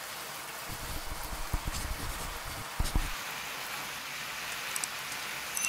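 Beef, onion and carrot stir-frying in a pan with a steady sizzle, and a few dull knocks of a wooden spatula against the pan between about one and three seconds in.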